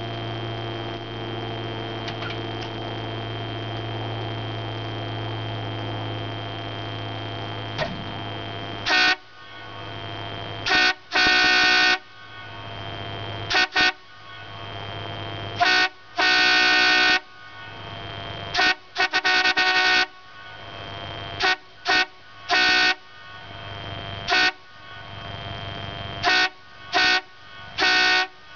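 Air horns on a farm grain truck blown in a series of short toots and longer blasts, starting about nine seconds in. Before the horns there is a steady low hum.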